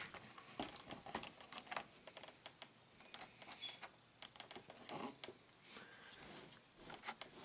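Faint, irregular light clicks and rustles of hands handling an RC airplane's fuselage and cowling.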